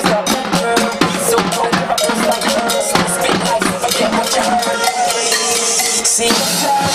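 Drumline playing: snare, tenor and bass drums and cymbals beating out a fast, dense rhythm, with pitched music sounding along with it. A wash of cymbal-like hiss swells about five seconds in and cuts off about a second later.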